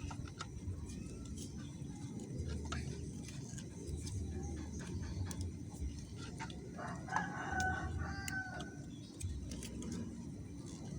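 A rooster crowing once, a drawn-out call of about two seconds starting roughly seven seconds in, over a steady low background rumble and scattered light clicks.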